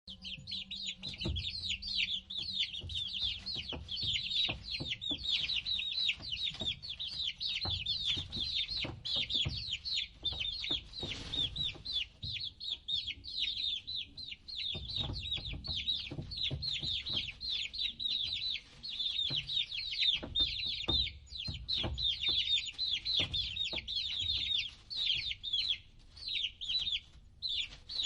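A group of baby chicks peeping continuously, many short high-pitched cheeps overlapping several times a second, with occasional soft knocks and low rumble underneath.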